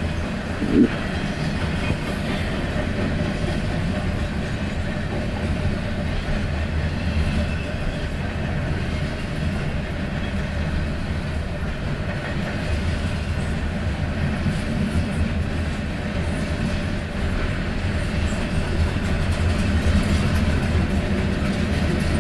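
Freight train cars rolling past at speed: a steady rumble of wheels on rail with clickety-clack over the rail joints. A brief, louder squeak comes about a second in.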